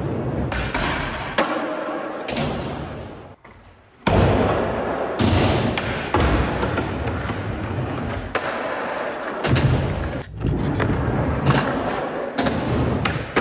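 Skateboard wheels rolling on a smooth park floor and ramps in a large hall, broken by several sharp clacks of tail pops and deck landings, with a brief break in the rolling about three and a half seconds in.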